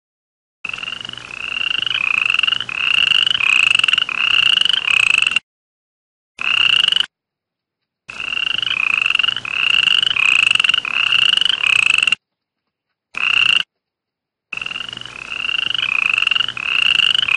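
A toad calling: a run of short, trilled notes repeated about one and a half times a second, each rising slightly in pitch. The runs stop and start abruptly, with brief silent gaps at about five, seven, twelve and thirteen seconds in.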